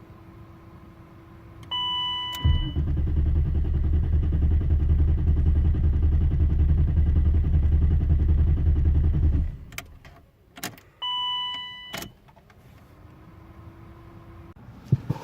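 BMW E32's M30 straight-six cranking on the starter for about seven seconds without catching, then stopping: the hard-start fault is still there. A dashboard chime beeps shortly before the cranking and again after it, with a few clicks and a faint rising hum when the ignition is switched back on.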